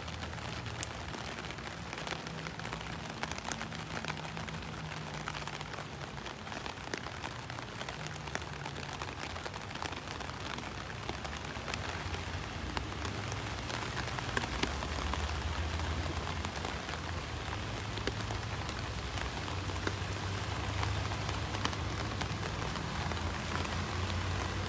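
Steady rain falling on wet paving, a constant hiss with scattered drop ticks. A low rumble underneath grows louder in the second half.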